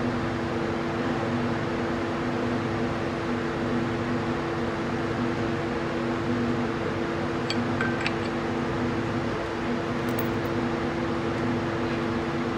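Steady mechanical hum with a constant pitched drone, the kind a running fan or air-conditioning unit makes, with a few faint light clicks about two-thirds of the way through.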